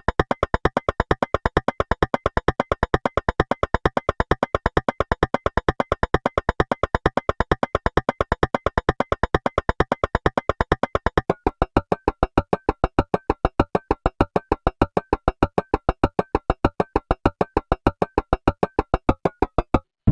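Synthesized percussive hit sound effect, made entirely without recorded sounds, repeating as a rapid, even train of sharp strikes several times a second. About ten seconds in, playback slows to 0.75x speed. The hits then come a little more slowly and sound slightly lower and duller.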